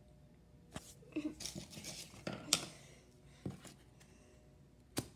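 Map jigsaw puzzle pieces being handled and shifted on a wooden surface: rustling and scraping with a few light knocks, the first about a second in and a sharper tap near the end.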